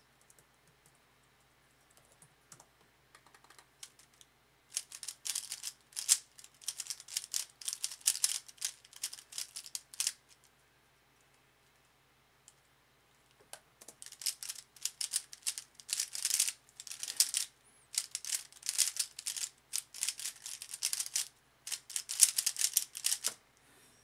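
A DaYan ZhanChi 55mm 3x3 speedcube being turned very fast in the hands: rapid plastic clicking and clattering of the layers. It comes in two runs, one about five seconds long and then, after a short pause, one of nearly ten seconds, the length of a sub-10 speedsolve.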